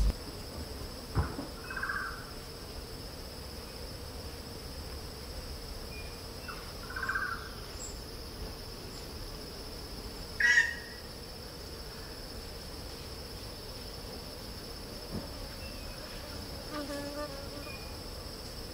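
Steady, high-pitched insect chorus singing without a break. A brief sharp knock about ten and a half seconds in, with a couple of faint short sounds earlier.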